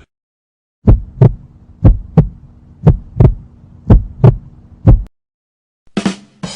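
Heartbeat sound effect: low double thumps, lub-dub, about one pair a second, five times over, over a faint steady hum. It stops abruptly, and a short burst of noise follows near the end.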